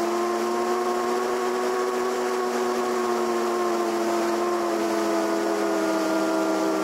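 Electric motor and propeller of an E-flite Piper Cherokee RC model plane whining steadily in flight, heard from a camera on the plane with air rushing past. The pitch rises slightly early on, then eases down slowly as the plane banks.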